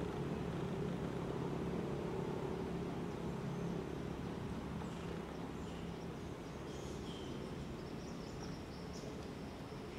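Outdoor ambience: a steady low mechanical hum, like a distant engine, slowly fading, with faint short high chirps joining from about halfway through.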